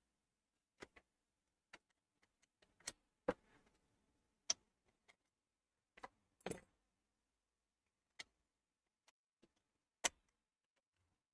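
Sparse, irregular light clicks and taps from small parts and tools being handled inside a desktop PC case while its CMOS coin-cell battery is swapped. The louder ones come about 3, 4.5, 6.5 and 10 seconds in.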